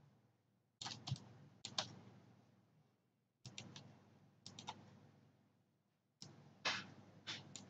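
Faint computer mouse clicks in quick pairs and small groups, about six groups spaced a second or so apart, made while placing Pen-tool anchor points.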